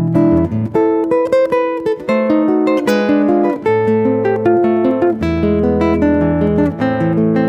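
Instrumental acoustic guitar music, picked and strummed chords over changing bass notes.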